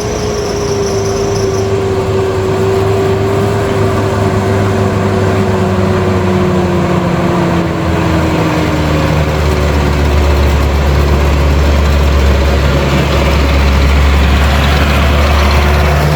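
A 4x4 vehicle's engine runs steadily under load, with a whine that slowly drops in pitch. About halfway through, a deep low hum grows louder.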